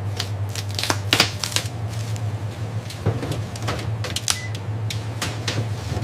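Irregular, quick clicking and clattering over a steady low hum, like machinery at work.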